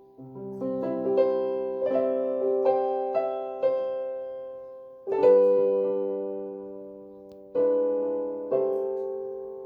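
Yamaha PSR-E333 keyboard's built-in piano voice played dry with the reverb switched off: a short run of single notes over a held bass, then three chords struck a few seconds apart, each ringing and fading.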